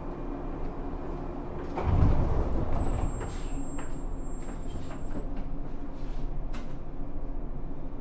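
Air-operated sliding doors of a JR 103-series commuter car closing at a station stop, with a heavy thump about two seconds in. Scattered clicks and air noise follow over the low hum of the standing train.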